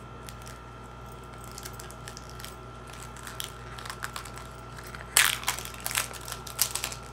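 Plastic shrink wrap crinkling as it is peeled off an eyeshadow palette: scattered crackles, the loudest about five seconds in, followed by several more.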